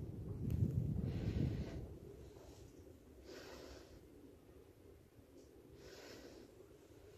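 Slow breathing close to the microphone: three soft breaths about two and a half seconds apart. A low rumble, loudest in the first two seconds, runs underneath.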